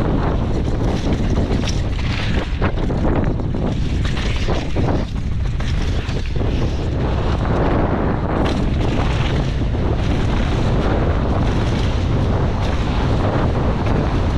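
Wind buffeting the action camera's microphone as a downhill mountain bike runs fast down a dry dirt trail, with steady tyre and trail noise and scattered knocks from the bike going over bumps.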